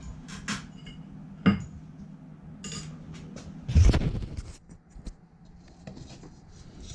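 Handling noise as the camera is moved and a hand takes hold of the flat lap's plastic splash pan: scattered clicks and light clinks, a sharp knock about a second and a half in and a heavier thump, the loudest sound, near four seconds. A low steady hum underneath fades out about halfway.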